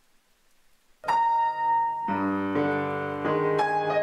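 Near silence, then about a second in piano music begins: chords struck one after another, each ringing on under the next.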